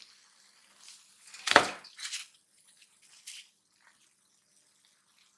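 Deep-fried apple fritters tipped from a wire spider strainer onto a paper-towel-lined plate. There is a soft thud with paper rustle about a second and a half in, then a few lighter taps and rustles.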